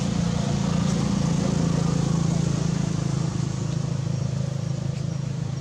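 A steady low motor hum, like an engine running without a change in speed.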